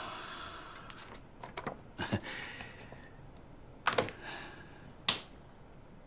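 Sheets of paper rustling as a résumé is handled, then scattered light clicks and taps, the sharpest two about four and five seconds in.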